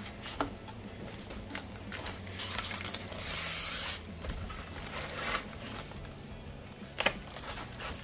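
Utility knife cutting packing tape and tape tearing loose from a cardboard box, with a longer steady tearing hiss a few seconds in. Scattered clicks, rubs and knocks of the fiberglass launch tube and cardboard being handled.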